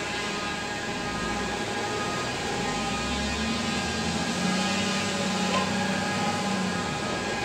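Volvo L60F wheel loader's six-cylinder diesel engine running, its note rising and getting louder about halfway through as the loader pulls away across the yard.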